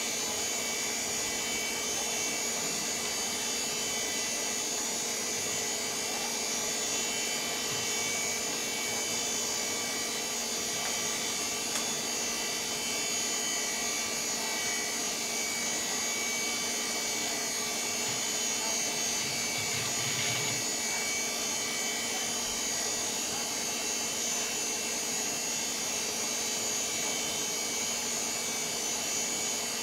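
VAX 4000-100A minicomputer running as it boots OpenVMS: a steady whir from its cooling fans and spinning disk, with several steady whining tones over it.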